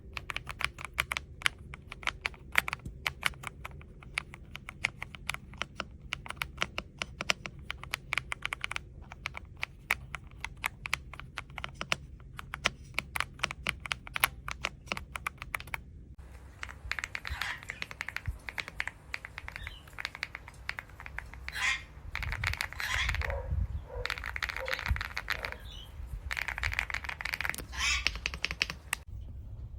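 Typing on an AULA S98 Pro mechanical keyboard with pre-lubed linear switches and PBT keycaps: rapid, continuous key clacks. About halfway through the sound changes to a denser rattle with a few low thumps.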